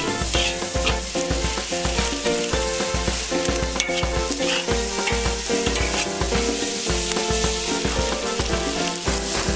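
Pork and white chili peppers sizzling as they are stir-fried in a wok, with a metal spatula scraping and clinking against the pan now and then. Background music with a steady beat runs under it.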